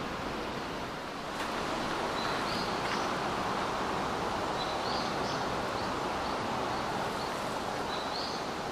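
Outdoor ambience in a forest: a steady rushing background with a few short, high bird chirps scattered through it, one about two seconds in, a couple around the middle and one near the end.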